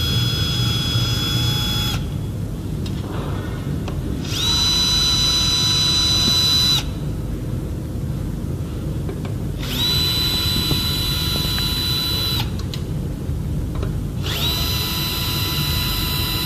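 Cordless drill-driver backing screws out of the underside of an electric scooter's deck, its motor whining in four runs of two to three seconds each, the pitch rising quickly as each run starts.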